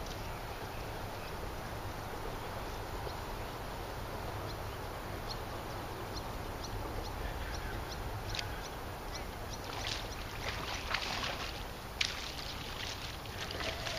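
Spinning reel being cranked against a hooked fish on a bent rod, giving off scattered light clicks that thicken into a cluster of louder clicks and rattles over the last few seconds. Behind them is a steady low rumble of wind and water.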